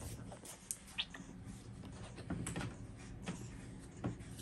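Faint rustling of bedding and clothes as a baby is handled on a bed, with a few soft clicks and taps scattered through.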